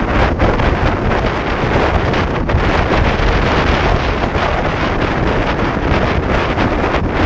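Steady, loud wind rushing over a motorcycle-mounted action camera's microphone at highway speed.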